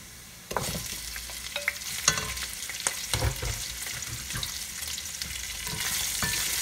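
Boiled beef pieces dropped into hot oil with browned onions in a metal pot, sizzling sharply as they land about half a second in. A wooden spoon then stirs them, knocking and scraping against the pot over steady frying sizzle that grows slightly louder near the end.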